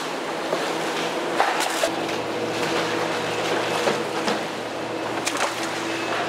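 Tadano truck crane running as it lowers a load of frozen tuna: a steady mechanical hum, with a deeper hum joining about two seconds in and a few sharp clanks.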